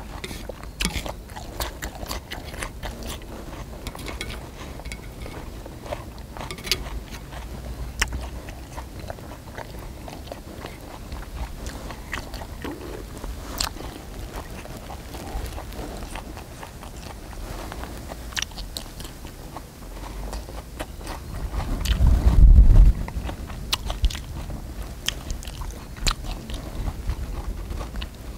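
Close-up mouth sounds of a person chewing and biting a leaf-wrapped bite of marinated pork, with scattered sharp clicks of chopsticks against a cast-iron griddle. A low rumble swells about two-thirds of the way through and is the loudest moment.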